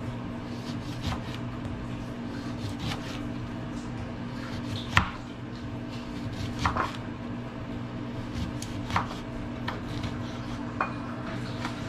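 Kitchen knife slicing a lemon on a plastic cutting board: irregular knocks of the blade striking the board, the loudest about five seconds in, over a steady low hum.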